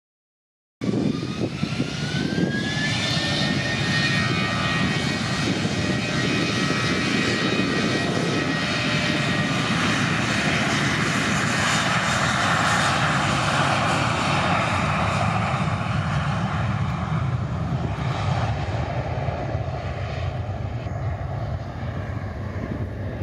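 Twin-engine narrowbody jet airliner's engines at takeoff power on the takeoff roll and lift-off: a loud, steady jet roar cutting in about a second in, with a high whine that rises in pitch over the first couple of seconds and then holds. The roar eases slightly near the end.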